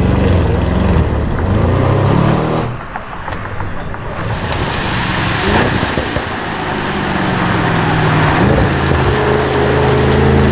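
Audi RS6 engine accelerating hard, rising and falling in pitch over the first few seconds. It dips briefly about three seconds in, then builds again into a steadier engine note toward the end.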